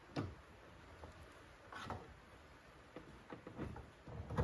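A few faint, scattered clicks and knocks, about four in all, as the battery's earth lead is handled at the terminals.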